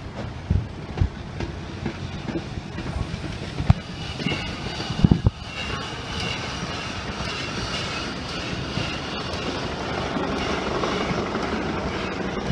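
1897 Baldwin steam locomotive No. 7 rolling slowly past, its wheels giving irregular knocks and clacks over the rail joints. In the second half a steadier rushing running noise takes over.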